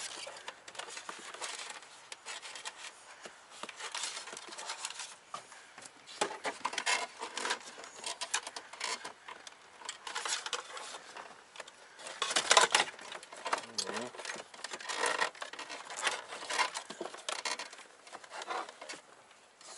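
Hands pulling and handling gauge wiring and a boost hose: irregular rustling, rubbing and light clicks, with one louder clatter about twelve seconds in.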